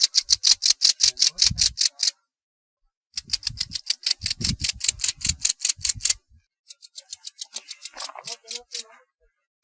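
Grasshopper stridulating: rapid trains of chirping pulses, about eight a second, in three bouts separated by short pauses, the last bout fainter.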